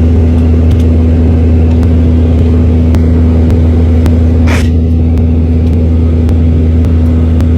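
Steady, loud low rumble with a droning hum.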